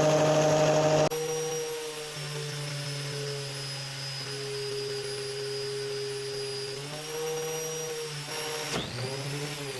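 Black and Decker angle grinder with a 60-grit sanding disc, running at a steady whine with a rubber bouncy ball held against it. The sound drops in level about a second in, and its pitch sags and recovers partway through. Near the end it breaks off suddenly and the motor note then falls away.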